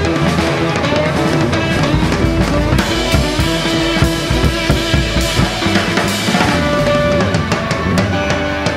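Background rock music with a steady drum-kit beat of bass drum and snare under sustained instrumental notes, with no singing.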